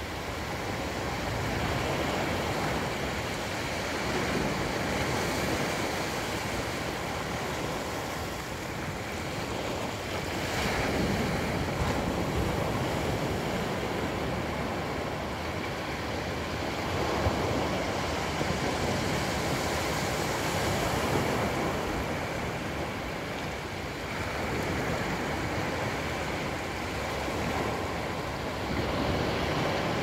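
Ocean surf: small waves breaking and washing up a flat sandy beach. It is a steady rushing that swells and eases every few seconds as each wave comes in.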